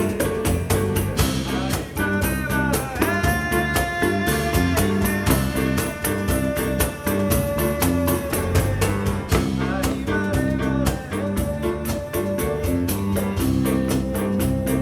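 A small live band playing Afro-rooted jazz. Hand percussion (pandeiro and cajon) keeps a fast, steady pulse under a walking bass and a held melody line.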